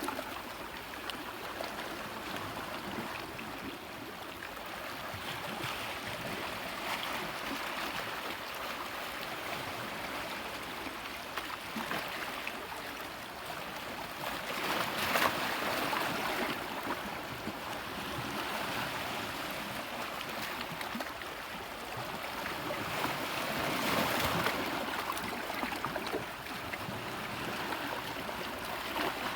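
Sea waves washing against rocks: a continuous rushing wash, with two louder surges, one about halfway through and another later on.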